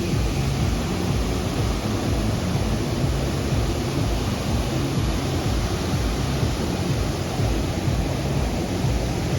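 Steady loud rush of a large waterfall pouring into its plunge pool, an even wash of noise with no let-up.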